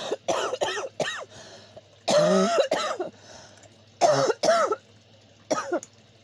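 A person coughing in a run of about seven separate coughs, with a longer, drawn-out one about two seconds in. The cougher puts the coughing down to smoke and fumes filling the room.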